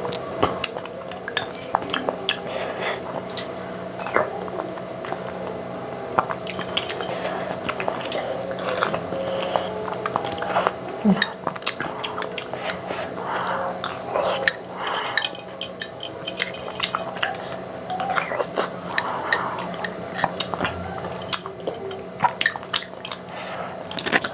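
Metal spoon clinking and scraping against a small glass bowl of kheer, many short sharp clicks at an uneven pace, mixed with wet mouth sounds of eating the milky rice pudding close to the microphone.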